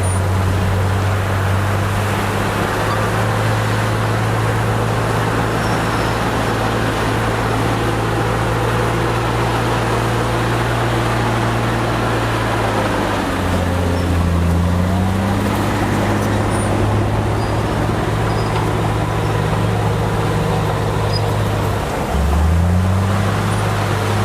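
Heavy construction machine's diesel engine running steadily. Its note drops and climbs back about halfway through, then dips sharply and rises again near the end.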